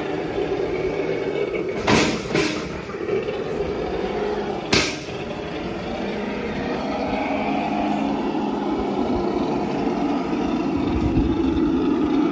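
Traxxas TRX-6 6x6 RC crawler's electric motor and geared drivetrain whining steadily as it crawls at low speed over a metal ramp. Sharp knocks come twice about two seconds in and once near five seconds.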